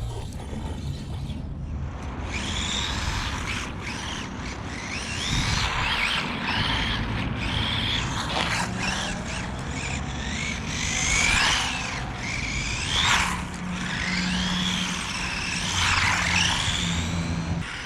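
Small electric RC buggy with a 380 motor driving on gravel, its motor whine rising and falling again and again with the throttle over a rough crunch of tyres and stones.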